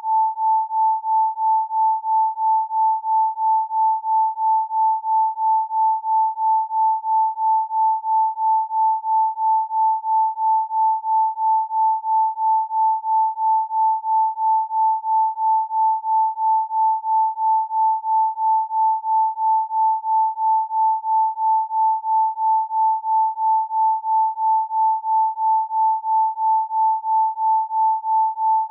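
Isochronic tone: a single pure mid-pitched tone pulsing on and off in an even beat, about two to three pulses a second, with no other sound.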